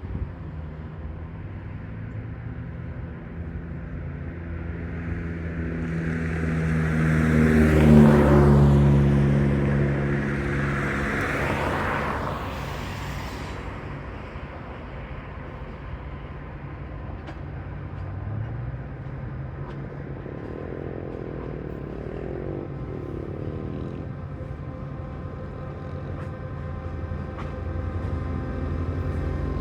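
A motor vehicle passes close by, its engine and tyres rising to a peak about eight seconds in, dropping in pitch as it goes by, then fading. A steady low engine hum runs underneath.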